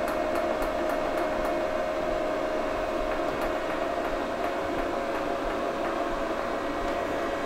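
Soldering hot plate running with a steady whirring hum from its cooling fan, with a few light clicks of its temperature-setting buttons being pressed in the first second and a half.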